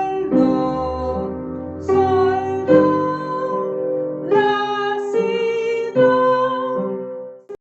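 A woman singing a slow solfège ear-training exercise in C major: a series of held notes with instrumental accompaniment, each changing pitch every second or so as the line resolves to the tonic C. The sound cuts off just before the end.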